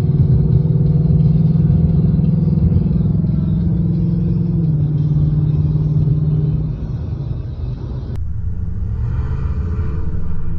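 2024 Ford Mustang Dark Horse's 5.0-litre V8 running while driving at speed, with a steady engine note that steps down a little about halfway. A sharp click comes about eight seconds in, after which the engine note drops and turns quieter.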